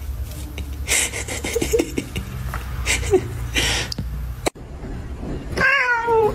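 An orange tabby cat meowing once near the end, a single cry that falls in pitch. Before it come a low rumble and a few breathy, hiss-like noise bursts.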